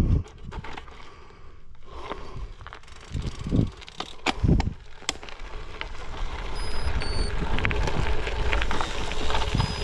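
Gravel bike tyres rolling and crunching over a loose dirt-and-gravel trail, with sharp ticks of stones. The rolling noise grows louder about halfway through. A few low rumbles come in the first half.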